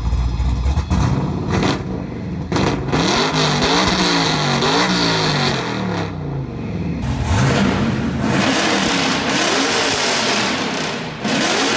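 Cadillac Escalade's turbocharged V8 free-revving while parked, blipped up and down in a quick series of revs through an H-pipe exhaust. After a cut about seven seconds in, it is revved again through an X-pipe exhaust, which gives a distinctly different exhaust tone.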